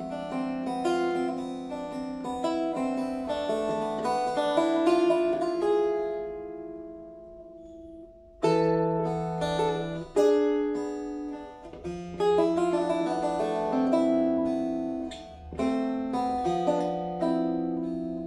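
Long-necked fretted wooden lute played solo: a plucked melody over a ringing low drone string. About six seconds in, a held note dies away, and the playing picks up again about two seconds later.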